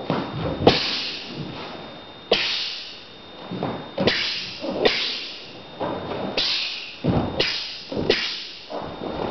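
About a dozen sharp snaps and thuds, roughly one a second, from the barefoot footwork and strikes of a martial arts form on a wooden hall floor. Each carries a short echo from the large hall.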